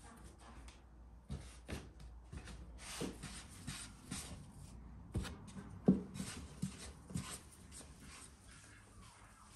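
Hands shaping soft bread dough into balls on a floured wooden board: soft rubbing with irregular light pats and taps of dough on wood, the loudest a little before and about six seconds in.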